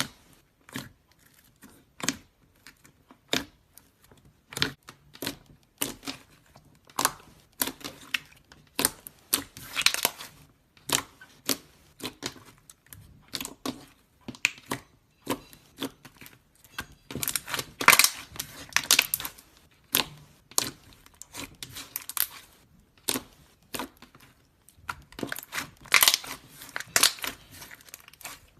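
Slime being squeezed and pressed by hand, giving irregular sharp pops and clicks, with three denser stretches of crackling.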